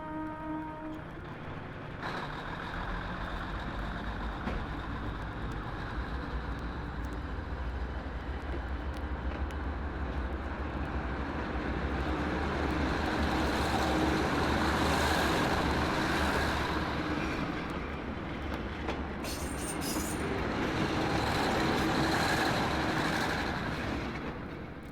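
A sound-effects record playing a rumbling vehicle noise: a deep rumble under a rushing noise that swells up twice and fades out near the end.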